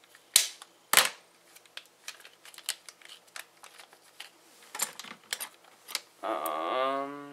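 A plier-type hand hole punch snapping through a plastic blister pack gives two sharp clicks within the first second. Light crinkling and ticking of the plastic follow as the pack is torn open by hand. Near the end a man's voice sounds for about a second, drawn out with no words.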